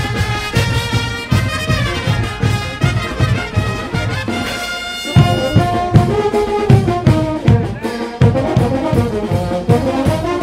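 Brass band playing a lively tune with a steady bass drum beat.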